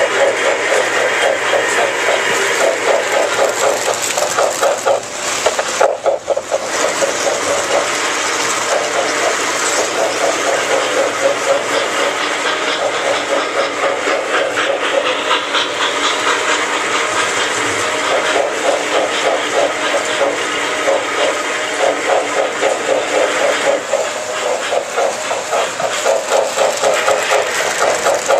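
Model steam locomotive running around a toy train layout, with a steady rhythmic chuffing over the rumble and hiss of the train on the track.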